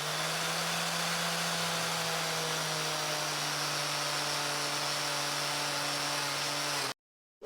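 Small electric power tool running at a steady speed, its motor hum under a loud grinding or sanding hiss, cutting off abruptly near the end.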